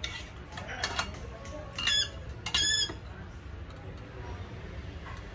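Chicken squawks: a short rising call about two seconds in, then a longer held, high-pitched squawk just after it.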